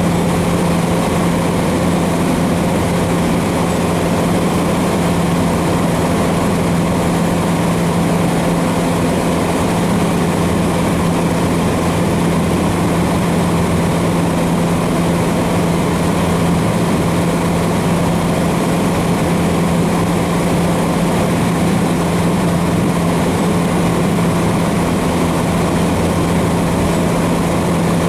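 Cessna 150's Continental O-200 four-cylinder engine and propeller running steadily in flight, heard inside the cockpit: a constant low hum with a rushing noise over it.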